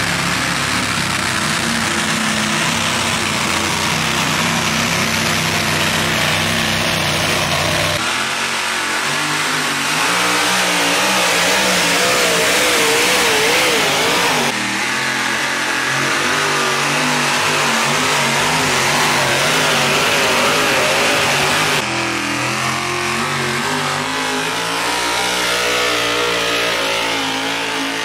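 Truck-pull vehicles, a modified pulling tractor and pickup trucks, running at full throttle while hauling a weight-transfer sled, with the engine pitch wavering under load. Several separate runs are spliced together, so the engine sound changes abruptly three times.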